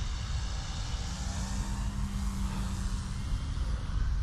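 Electric RC aerobatic plane's brushless motor and 16x7 propeller whining as it flies at a distance, the pitch drifting slowly as it passes. A steady low rumble of wind on the microphone runs under it.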